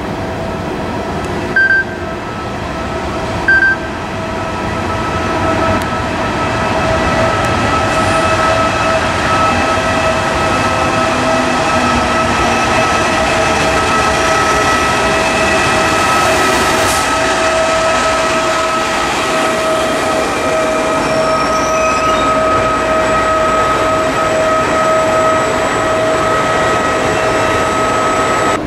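Trenitalia E.464 electric locomotive and its double-deck coaches rolling slowly past with a steady electric whine. Two short high beeps come about two and three and a half seconds in.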